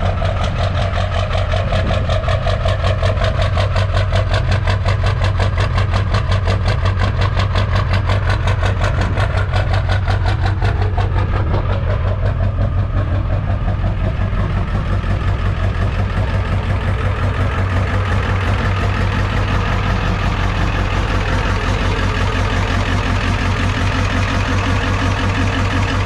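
Ford pickup's diesel engine idling steadily after a cold start, with a fast, even clatter.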